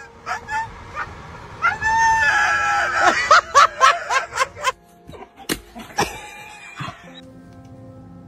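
A dog gives a long, high howl, then a quick run of short, pitched cries. From about seven seconds in, soft music with steady held notes.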